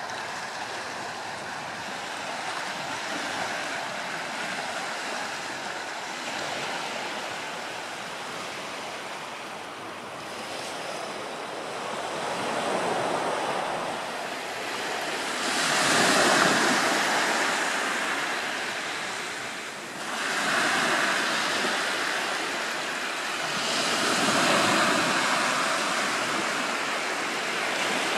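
Sea waves washing ashore over rocks and sand: a continuous wash of surf that swells into louder surges about every four seconds in the second half.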